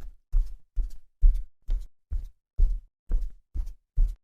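Footstep sound effect: a steady walking pace of short, dull thuds, about two and a half steps a second.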